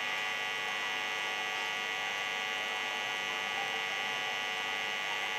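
A steady electrical hum and buzz, made of many fixed tones held at an even level.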